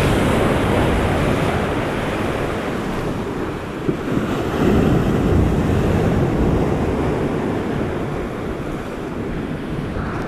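Sea surf breaking and washing over a rocky shore, surging louder and easing in waves, with wind rumbling on the microphone.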